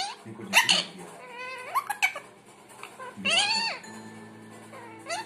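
Rose-ringed parakeet (Indian ringneck) giving a series of short, high-pitched, rising-and-falling calls, with a longer call about three seconds in.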